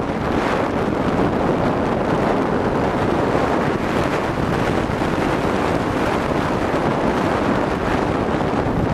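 Steady wind noise buffeting a helmet-mounted microphone while riding a Triumph Tiger 800 XCx, with the motorcycle's three-cylinder engine running underneath.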